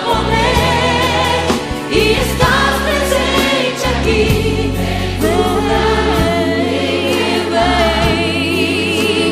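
Gospel song playing: a sung lead with a choir over a band with steady bass.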